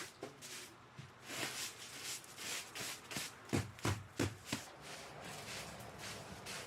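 Hands-on cleaning work: repeated short swishing and rustling strokes, with a few dull knocks about three and a half to four and a half seconds in.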